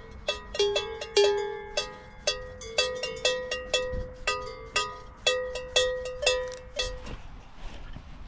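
Cowbells on grazing Brown Swiss cattle clanging irregularly, about two strikes a second, with at least two bells of different pitch ringing, stopping about seven seconds in.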